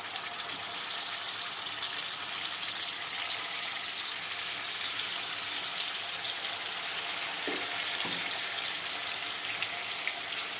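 Masala-coated fish pieces shallow-frying in hot oil: a steady sizzle that grows slightly louder over the first couple of seconds.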